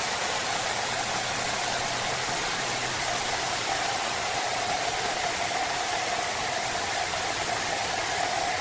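Large horizontal sawmill bandsaw running steadily: an even, hissing machine noise with a steady mid-pitched whine and a faint low hum, unchanging in level.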